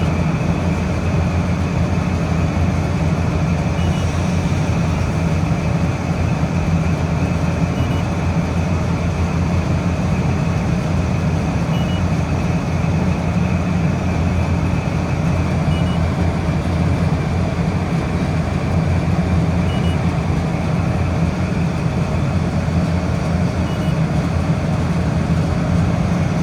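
Refrigeration condensing unit running steadily, a loud, even hum of compressor and fan motor, with a faint short high chirp about every four seconds.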